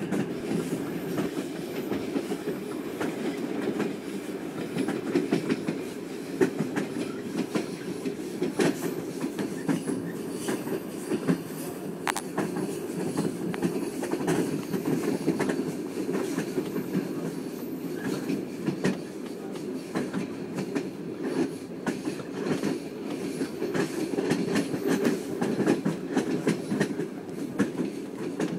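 Passenger train running on the rails, heard from inside a carriage: a steady rumble of wheels on track with frequent, irregular clicks and knocks.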